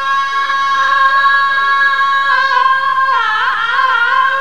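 A woman singing in Middle Atlas Amazigh style, holding one long high note that wavers in an ornamented turn about halfway through before settling again.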